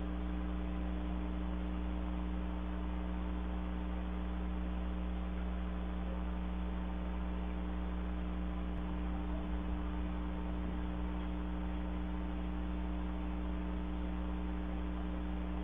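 Steady electrical mains hum with a faint hiss in a security camera's audio, brought out because the recording's sound was turned up.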